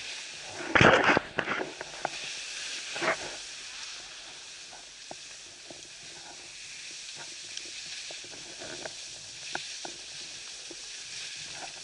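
Snowboard sliding over packed snow: a steady hiss of the board on the piste, with two louder noisy bursts, about a second in and again near three seconds.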